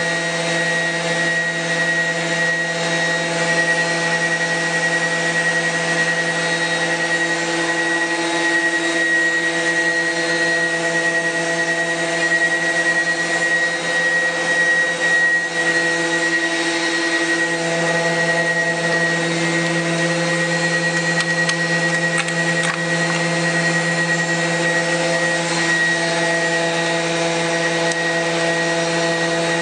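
Mazak 510C vertical machining center running with its spindle turning at a commanded 10,000 rpm: a steady hum and whine made of several even tones, the lowest at the spindle's rotation rate.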